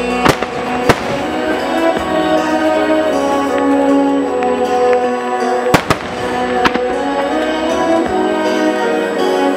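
Music playing over loudspeakers at a fireworks display, with sharp firework bangs cutting through it: two shortly after the start, and a cluster of three around the middle.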